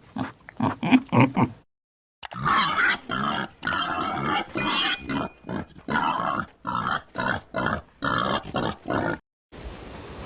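Short animal grunts repeated in quick runs, with a complete break about two seconds in; near the end the calls stop and a quieter steady background takes over.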